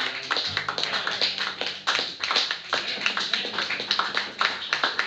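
Applause from a small audience: many irregular, overlapping hand claps.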